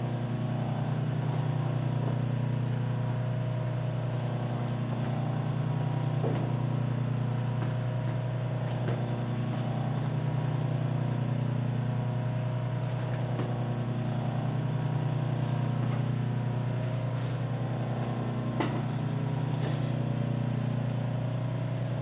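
Steady electric hum of an industrial sewing machine's motor running idle, with a few faint taps.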